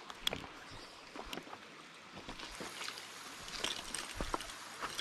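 Small, shallow stream running over shale, with scattered splashes and sharp knocks.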